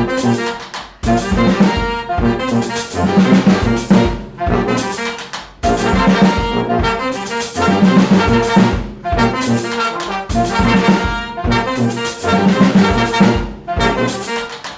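Brass band playing an upbeat dance tune: trombones, trumpet, tenor and alto saxophones and sousaphone over a drum kit, in short punchy phrases with brief breaks between them.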